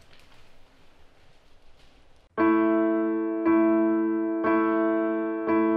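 Piano music: after about two seconds of faint background noise, slow sustained piano chords come in, struck about once a second and each fading slowly.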